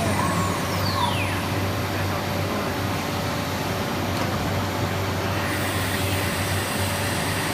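CNC nesting machine for furniture board running with a steady mechanical noise and a constant low hum. A high whine falls in pitch during the first second and a half.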